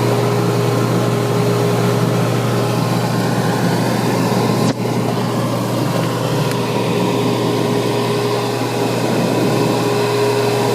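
Whirlpool DU810SWPU3 dishwasher running, its motor and pump giving a steady hum with a brief dip about four and a half seconds in.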